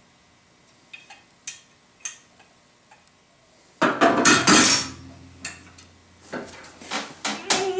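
T-square table saw fence head being handled: a few light metal clicks, then a loud scraping clatter about four seconds in as the fence head is set back onto the front rail, followed by more clicks and knocks.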